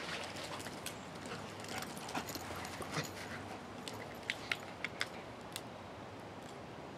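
Two dogs moving about on grass and mouthing a toy, with scattered sharp clicks and snaps and a quick run of about five a little past halfway.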